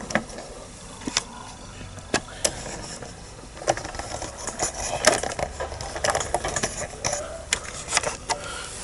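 Scattered clicks, taps and light rattles of small hard plastic and metal parts being handled and pushed together while Button Fix panel fixings are fitted. The clicks come thicker from about four to seven seconds in.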